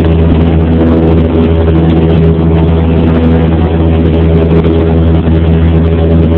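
Cessna 172P's four-cylinder Lycoming engine and propeller droning steadily in flight, heard inside the cabin, loud and even in pitch throughout.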